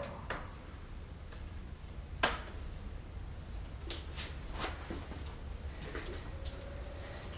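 A few scattered clicks and knocks over a low steady rumble in a quiet room. The sharpest comes about two seconds in. A faint steady tone comes in about six seconds in.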